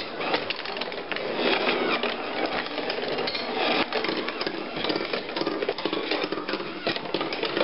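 Handmade wooden marble machine running: a steady, dense clatter of many small wooden clicks and knocks from its turning wooden mechanism and the marbles moving through it.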